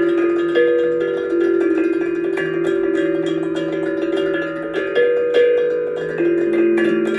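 Instrumental music of ringing, bell-like pitched notes, each held for a second or so before the next.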